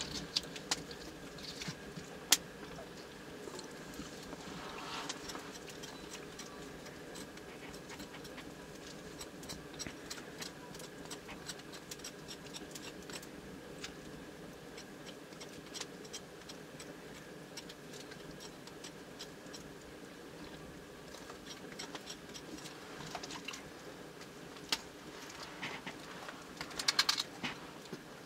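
Scattered small clicks and taps of a knife and fingers working potatoes over a metal bowl and pot, with a quick run of clicks near the end as pieces are cut, over a faint steady background hum.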